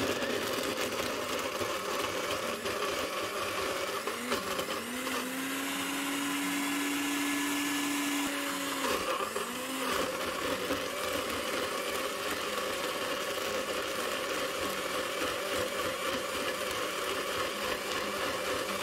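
Bullet-style personal blender running at full speed, its motor whirring steadily as it purées kale, avocado, almonds and almond milk into a thick smoothie. A held tone rises into the sound for a few seconds around the middle and then drops away.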